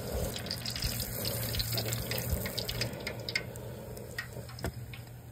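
Catfish strips deep-frying in about an inch of hot vegetable oil in a deep pot: a steady sizzle with scattered pops and crackles, over a low steady hum.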